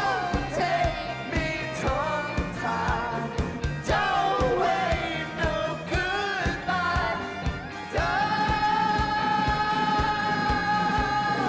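Live rock band playing, with drums, electric guitars, bass and keyboards under a sung vocal line that bends up and down in pitch. About eight seconds in, the voice settles on one long held note.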